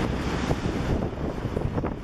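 Metro train pulling out of an open-air platform, its rumble fading within the first second, then a scatter of clicks and clatter as its wheels run away over the track points. Wind on the microphone.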